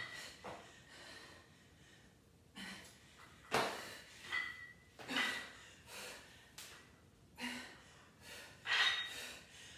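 Heavy breathing from a woman lifting a barbell: short, forceful breaths about once a second.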